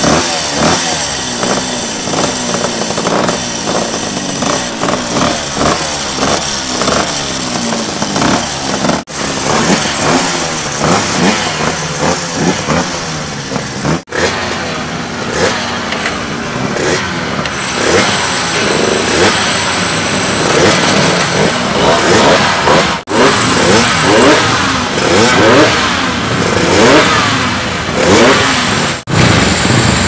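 Two-stroke racing motorcycles, an Aprilia and Yamaha TZs, revved one after another on roller starters, the throttle blipped in quick rising and falling revs. The sound changes abruptly several times as one bike gives way to the next.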